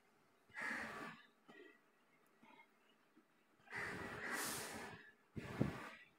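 A man breathing heavily through his nose close to the microphone: three noisy breaths with quiet gaps between, the longest lasting just over a second.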